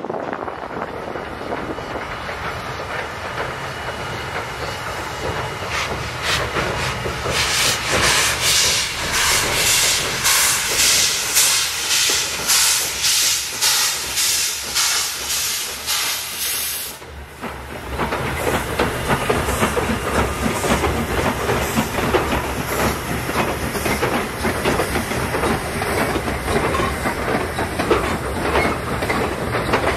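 Black River & Western steam locomotive working across a steel trestle: exhaust chuffs at about two a second over hissing steam, strongest in the middle of the stretch. After a short dip, the passenger cars roll over the bridge with steady wheel clatter.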